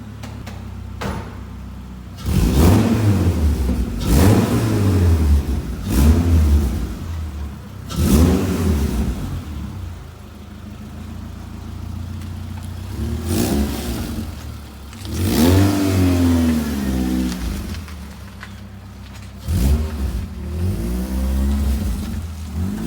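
Car engine revving up and dropping back about seven times, its pitch rising and falling, with a steady low running hum between revs.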